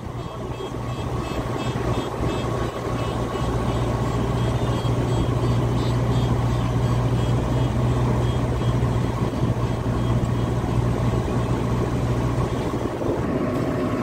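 Heavy construction machinery running with a steady low engine drone that drops away near the end, with faint high-pitched beeping, about three a second, over the first half.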